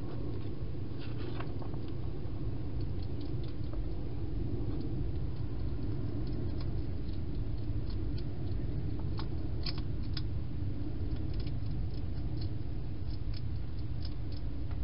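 Wild hedgehog feeding inside a plastic feeding box: irregular small clicks and crunches of it eating, over a steady low background rumble.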